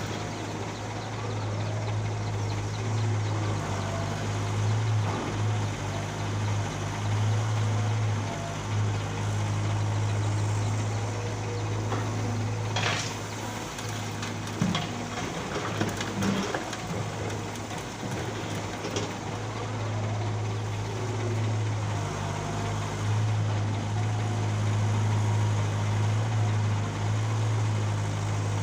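Heavy-equipment diesel engine running steadily with a low hum, with a few sharp knocks near the middle as excavated soil is loaded into a dump truck.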